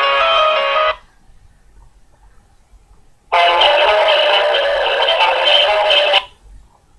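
Nokia N72 ringtones playing in turn: one tune ends about a second in, and after a short pause another starts about three seconds in and cuts off abruptly near the end.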